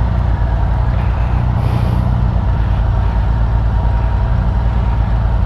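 Honda Gold Wing GL1500 motorcycle's flat-six engine running steadily, a low, even engine note with no speech over it.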